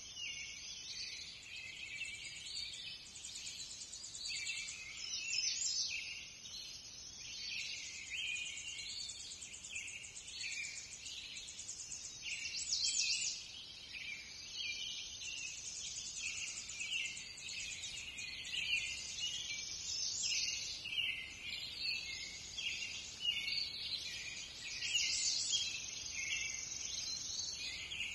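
Many songbirds chirping and trilling at once in a busy, unbroken chorus of high-pitched calls, some of them fast buzzy trills.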